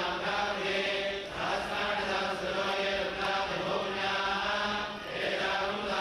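Hindu priests chanting mantras at a fire ritual, voices held on long steady notes with short breaks for breath about a second in and near the end.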